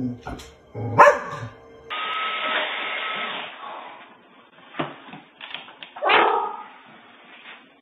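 Dogs barking: one sharp loud bark about a second in, then a short yelp near five seconds and a stronger bark about six seconds in, heard with hiss through a home security camera's microphone.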